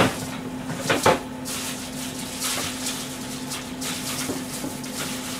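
Kitchen things being handled: a sharp knock at the start and two more about a second in, then a spell of rustling, over a steady low hum.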